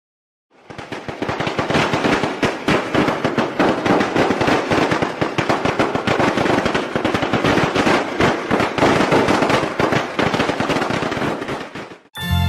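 A long string of firecrackers going off, a dense, rapid crackle of pops that starts about half a second in and cuts off suddenly near the end, when music begins.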